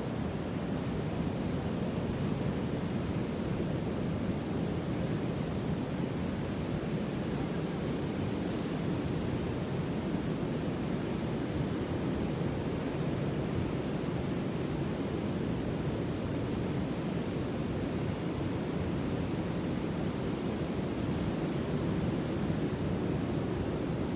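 Sea surf: a steady, deep rushing wash of ocean waves, even in level throughout with no single wave standing out.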